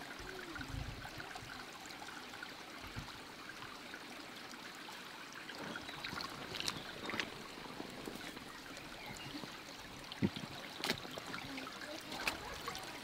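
Small stream trickling over rocks, a steady watery hiss. A few low thumps come near the start and a few sharp clicks near the end.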